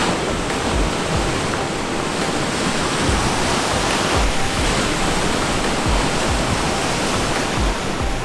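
Steady rush of wind and lake waves, with gusts repeatedly buffeting the microphone in low rumbles.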